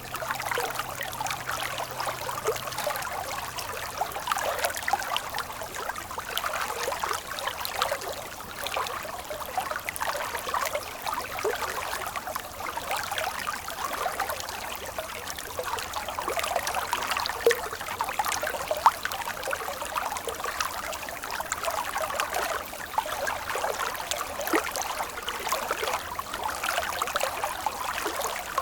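Stream water flowing and trickling steadily, a continuous babble full of small splashes.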